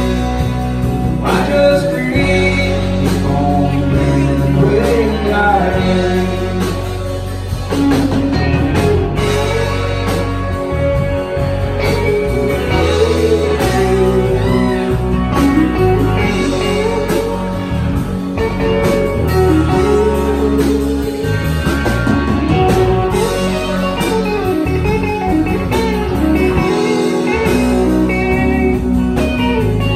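Live band playing a country song, an instrumental break with a Telecaster-style electric guitar taking the lead over bass guitar and drums.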